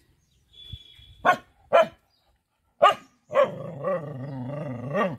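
A dog barks three short, sharp times, then gives a long, wavering growl of nearly two seconds: the mother dog warning someone off her puppies.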